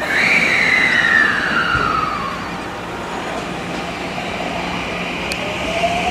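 JR West electric multiple unit running, its traction motors and inverter whining over the rumble of the train. A clear tone glides down over about the first two seconds, and a fainter tone begins rising near the end, the pitch following the motors' speed.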